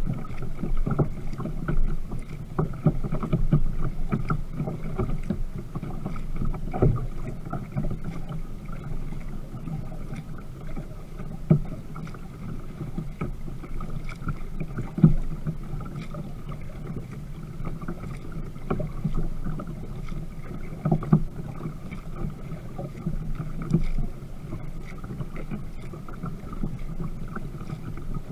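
Water splashing and slapping against the plastic hull of a Viking Profish Reload kayak under way, with frequent irregular knocks and thumps.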